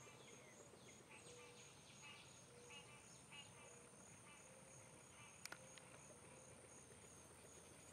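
Near silence: faint insects chirping steadily, about three chirps a second, over a faint even high hum.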